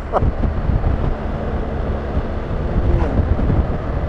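Wind rushing steadily over the microphone of a BMW R1250GS motorcycle riding at speed, with the boxer-twin engine and road noise underneath.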